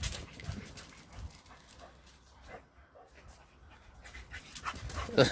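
A dog panting, quick short breaths.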